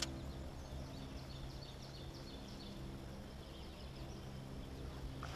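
Faint birdsong, a run of short high chirps repeated again and again, over a steady low hum.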